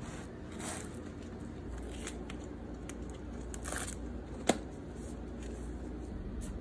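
Dry corn husk rustling and crinkling in the hands as a tamale is folded and rolled, in soft scattered rustles over a low steady hum. A single sharp click about four and a half seconds in.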